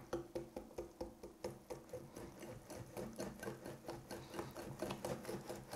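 Hand whisk beating cake batter in a glass bowl, the wires knocking and scraping against the bowl in a quick, even rhythm of about four to five strokes a second as flour is worked into the egg-and-oil batter.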